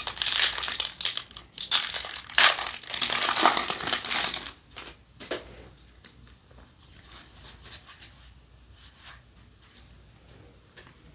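Foil wrapper of a Yu-Gi-Oh! 2021 Tin of Ancient Battles mega pack being torn open and crinkled, loud for about the first four and a half seconds. After that come faint clicks and rustles of the trading cards being slid out and handled.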